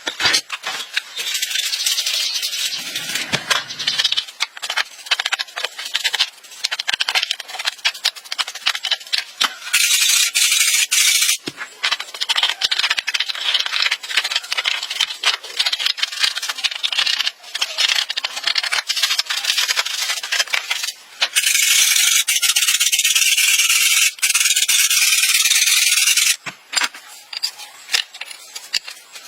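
Rough scraping and rubbing on a hard surface, in long stretches broken by short pauses, with many small clicks and rattles throughout.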